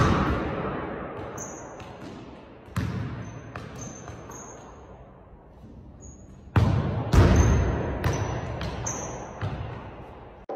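A soccer ball being kicked against the walls of a racquetball court: a handful of hard thuds, each ringing on in a long echo off the bare walls, two of them close together about two-thirds of the way through. Sneakers give short high squeaks on the hardwood floor between the kicks.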